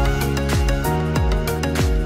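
Background music with a steady beat: sustained instrumental notes over regular drum strokes.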